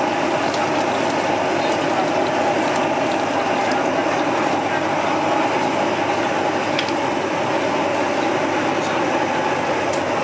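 Steady mechanical whirring and rattling from a running machine, unchanging throughout, with a few faint clicks.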